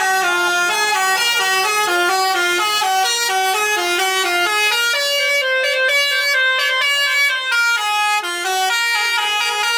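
Indonesian bus 'telolet' horn, a multi-trumpet air horn playing a fast snaking melody, its notes stepping up and down about three times a second. Near the middle it climbs into a higher run of notes, then drops back.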